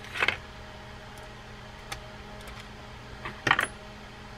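Small metal clicks and clinks of a screwdriver working the little screws on a Shimano Tyrnos 10 lever drag reel's trim ring: a short cluster just after the start, a single faint tick about two seconds in, and a louder clatter about three and a half seconds in.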